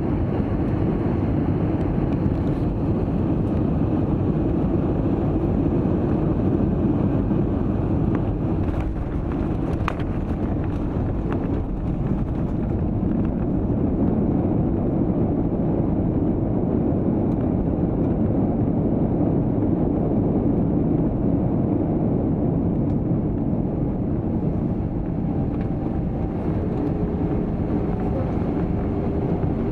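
Steady low rumble of engine and airflow noise heard inside the cabin of a Peach Aviation Airbus A320 airliner, with a few faint clicks about a third of the way in.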